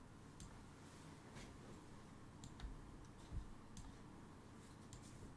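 Several faint computer mouse clicks, scattered irregularly, with a couple of soft low thumps, over near-silent room tone.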